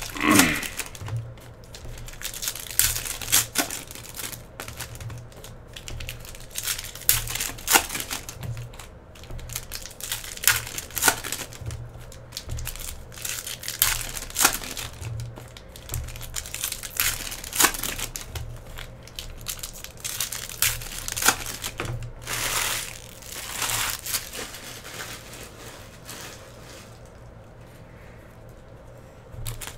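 Foil wrappers of Panini Prizm basketball hobby packs crinkling and tearing as the packs are ripped open, in irregular sharp crackles. The crackling quiets down in the last few seconds.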